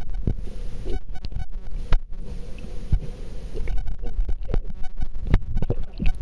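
Muffled water noise picked up by a waterproof camera held underwater: a low rumble with many scattered knocks and clicks as the camera is moved and handled in the water.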